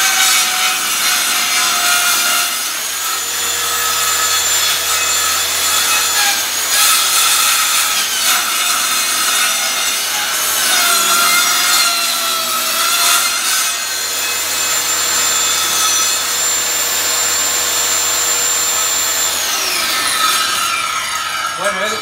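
Circular saw mounted upside down under a homemade work table, used as a table saw, ripping wooden boards into thin strips. Its whine holds steady through the cuts, then falls in pitch near the end as the blade spins down.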